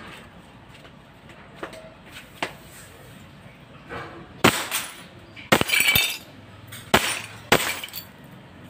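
Gas blowback airsoft pistol (WE M1911) firing a string of sharp shots, with a few fainter clicks before them. Partway through, a glass bottle shatters with clinking glass as it is hit.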